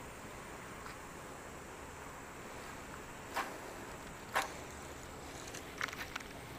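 Steady faint outdoor hiss broken by a few short, sharp clicks: two single ones about a second apart in the middle, then a quick cluster of three or four near the end.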